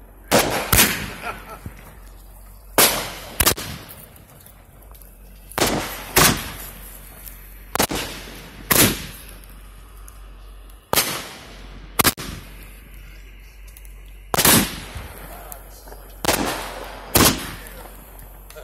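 Aerial fireworks going off in a string: about a dozen sharp, loud bangs, irregularly spaced, some in quick pairs, each followed by an echoing tail.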